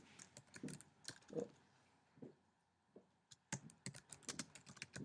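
Faint typing on a computer keyboard: scattered keystrokes, a pause of about a second, then a quick run of keys near the end.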